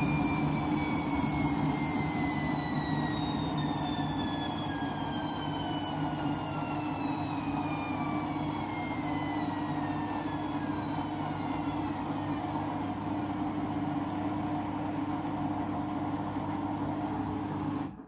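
Candy washing machine winding down from a spin with a half load of bedding that was very out of balance: the motor's whine falls steadily in pitch as the drum slows, over a steady hum.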